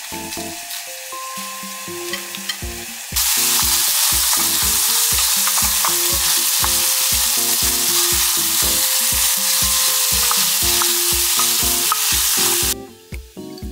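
Diced bacon sizzling loudly in a frying pan as it is stirred with a wooden spatula. The sizzling starts abruptly about three seconds in and cuts off abruptly near the end. Background music with a steady beat plays underneath.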